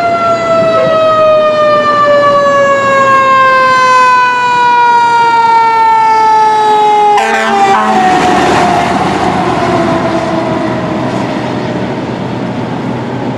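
Fire engine siren wailing loudly, its pitch falling slowly and steadily as it winds down after a brief wind-up. About seven seconds in, the truck passes close with a sudden burst of engine and road noise, and the siren fades as it drives away.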